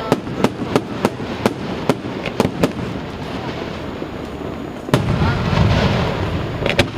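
Aerial fireworks display: a quick run of sharp bangs in the first few seconds, then a single louder bang about five seconds in, followed by a rolling rumble and crackle, and another bang near the end.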